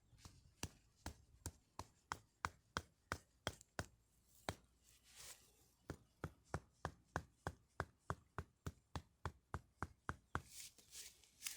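A knife chopping food on a cutting board in steady, evenly spaced strokes, about three a second. There is a short pause about four and a half seconds in, and then the strokes come a little faster.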